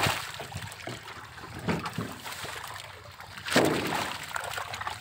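Shallow pond water splashing and sloshing around a seine net full of live fish being hauled in. There is a sharp splash at the start, another a little under two seconds in, and a bigger, longer surge of splashing a little after halfway.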